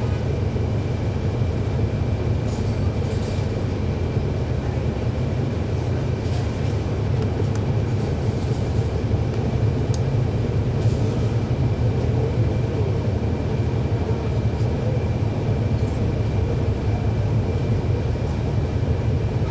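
Inside a 2011 NABI 40-SFW transit bus, the steady low rumble of its Cummins ISL9 diesel engine running, with a thin, steady high whine and a few faint rattles over it.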